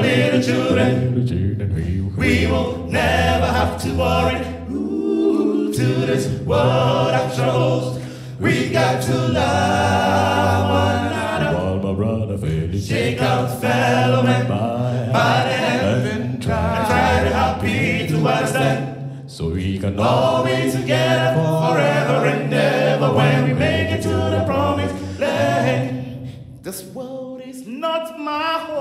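All-male a cappella gospel group singing in close harmony, several voices together with a deep bass voice holding low notes beneath the lead and backing parts.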